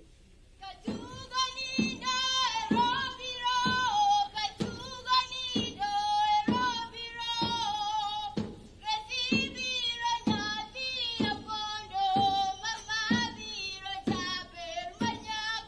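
Schoolgirls singing a Luo dudu song with a steady drum beat about twice a second, starting about a second in.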